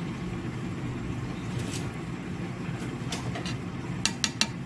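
A metal spoon clinks sharply three times against a stainless steel pot about four seconds in, after a few lighter taps, over a steady low rumble.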